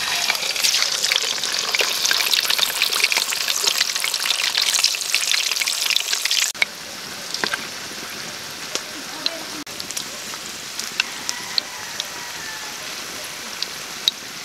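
Steamed pork ribs frying in hot oil in a wok: a loud, dense sizzle and crackle as the rack goes into the oil, dropping suddenly about six seconds in to a quieter steady sizzle with scattered pops.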